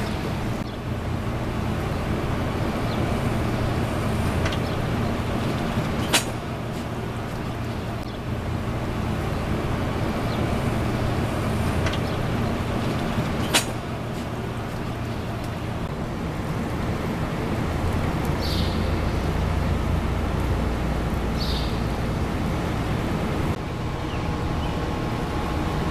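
Steady low outdoor rumble with two sharp clicks, about six and thirteen seconds in, and a couple of faint short chirps later on.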